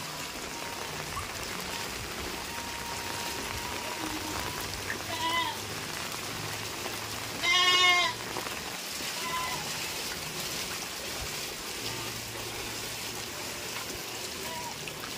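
Steady rain falling, with three short bleats from livestock around the middle; the second bleat is the loudest and longest.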